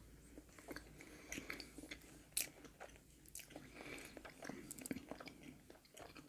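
Faint chewing of mince pie: soft mouth noises with scattered small clicks and crackles of shortcrust pastry, one sharper click about two and a half seconds in.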